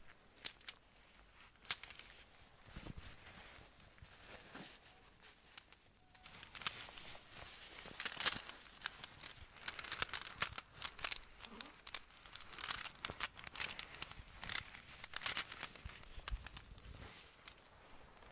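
Close-miked crinkling and rustling with many sharp little clicks, in a quick, irregular run of ASMR handling and tapping sounds.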